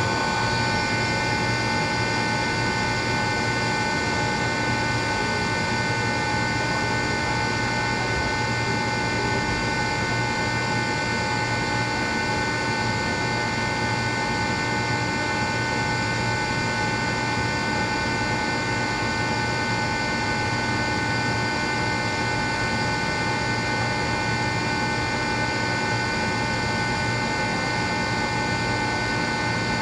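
Rotary screw air compressor running steadily, a constant high whine over a low hum.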